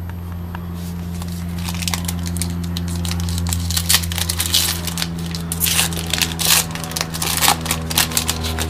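Foil trading-card pack being torn open and crinkled by hand: sharp crinkles and crackles, sparse at first and busier from about two seconds in, over a steady low hum.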